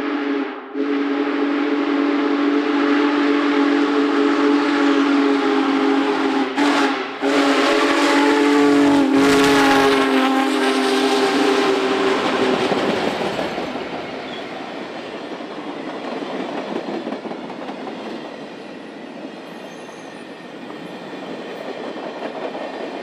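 Union Pacific Big Boy 4014's chime whistle sounding a multi-note chord in long blasts with a short one between, the long-long-short-long pattern of a grade-crossing signal. Its pitch sags as the locomotive passes about 9 seconds in. The whistle stops about 12 seconds in, leaving the rumble and clatter of the train rolling by, fading away.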